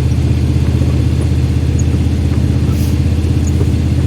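Steady low drone of a car driving, heard from inside the cabin: engine and road noise with no change in pitch.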